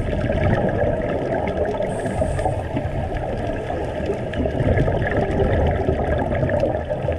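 Underwater sound picked up through a dive camera's housing: a steady, dense rush of water and bubbles with faint steady tones above it.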